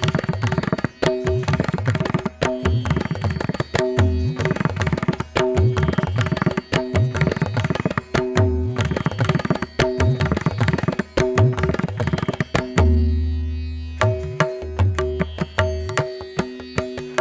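Instrumental music: a busy drum rhythm over steady held notes. About thirteen seconds in, the drums drop out for about a second under a deep held bass note, then resume.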